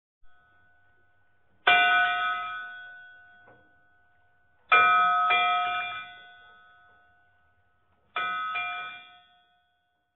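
A bell struck and left to ring: one stroke, then a pair of strokes, then another pair, each ringing out and dying away over a second or two.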